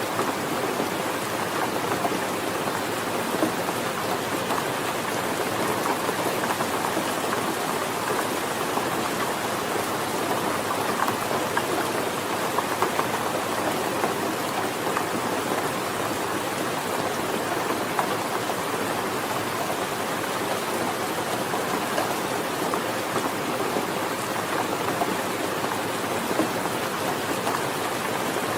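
Steady rain falling, a dense even patter of drops with scattered louder drop hits and no change in intensity.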